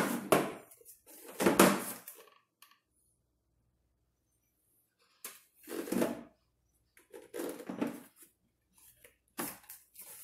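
A plastic booster seat being handled and shifted on a wooden chair while its strap is worked: short bursts of rubbing, scraping and knocking, broken by a quiet gap of about three seconds near the middle.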